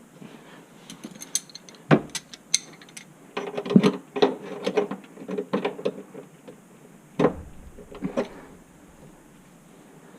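Mechanical clicking and rattling, dense for a few seconds in the middle, with loud knocks about two seconds in and again about seven seconds in.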